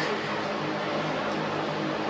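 Steady background hiss with a faint low hum, unchanging throughout.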